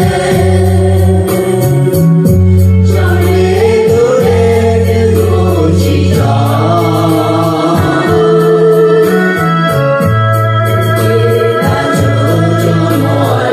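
A song: a voice singing a melody over held low accompaniment notes.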